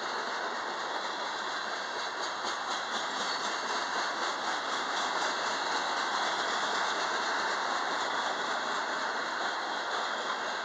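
Covered hopper cars of a freight train rolling past, a steady rumble of steel wheels on the rails with a faint rapid clicking from the wheels, plainest in the first half.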